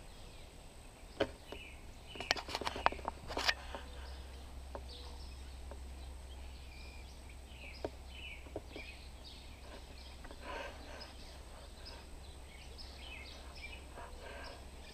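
Faint outdoor ambience: scattered bird chirps, a few sharp clicks in the first few seconds, and a steady low rumble underneath.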